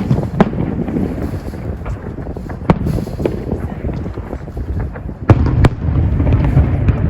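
Fireworks going off: sharp bangs about half a second in, near the middle, and a quick pair near the end, over a continuous low booming rumble that swells after the last pair.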